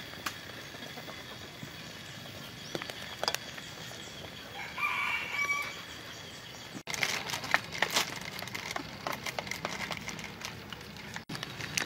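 Rural outdoor background with a chicken calling once, about five seconds in. After that come a run of light clicks and clatter.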